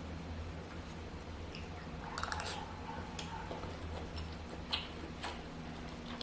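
Close-miked chewing of soft food, with small wet mouth clicks scattered throughout, a cluster about two seconds in and a sharper click near five seconds, over a steady low hum.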